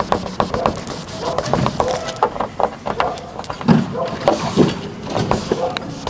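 A cloth rubbing a sticker down onto a car's painted boot lid, giving irregular clicks and short squeaks as it is pressed and wiped.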